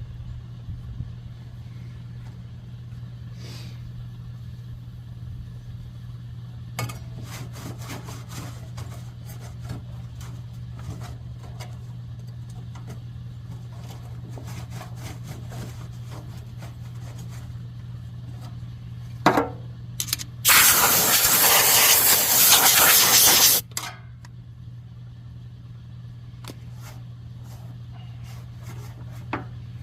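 Compressed-air blowgun blowing dust out of a forced-air heater: a short puff, then a loud hissing blast of about three seconds. Earlier there is light rubbing and clicking, over a steady low hum.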